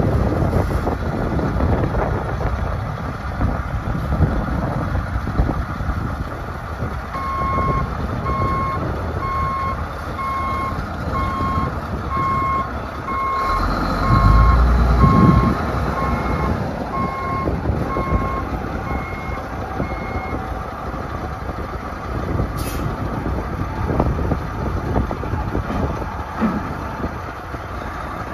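Truck crane's diesel engine running as the crane is driven in reverse, with its backup alarm beeping about once a second through the middle of the clip. The engine gets louder for a couple of seconds about halfway through.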